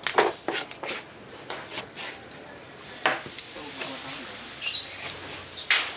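A large knife cutting through a trevally fillet and striking a wooden chopping block: a handful of irregular knocks as the blade hits the wood.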